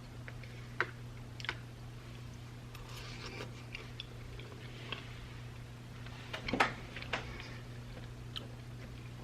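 A utensil clicking and scraping against a plastic ready-meal tray while a person eats, with scattered sharp taps, the loudest about six and a half seconds in. A steady low hum runs underneath.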